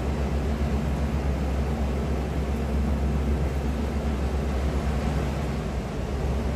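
Steady low rumble of wind buffeting the microphone, over a faint hiss.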